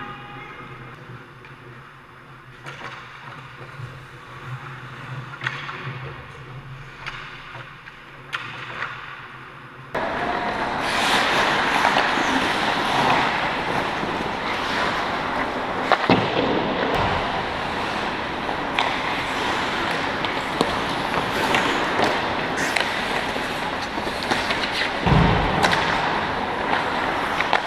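Ice hockey play on an indoor rink: skate blades scraping and carving the ice, with scattered clacks of sticks and puck. The sound jumps much louder about ten seconds in. A low thump comes near the end.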